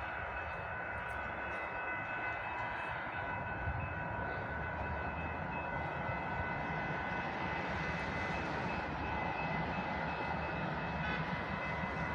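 Distant vehicle noise: a steady low rumble with several steady high whining tones over it, swelling slightly around the middle.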